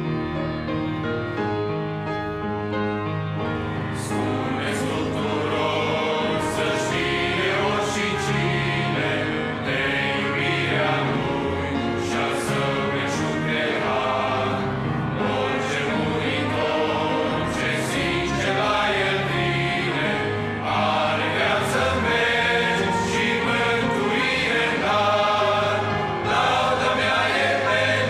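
Men's choir singing a Christian hymn in Romanian, in harmony, with grand piano and trumpet accompaniment.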